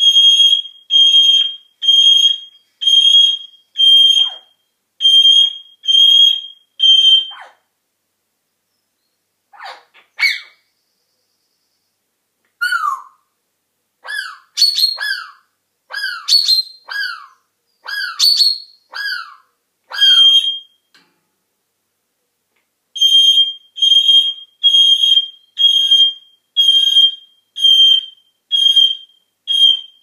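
African grey parrot mimicking an electronic alarm beep, one high beep about every second. About ten seconds in the beeping breaks off for a run of short falling whistles, then the beeps start again near the end.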